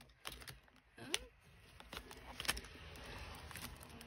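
Paper envelopes and cards being handled on a table: soft rustling with a few sharp clicks and taps.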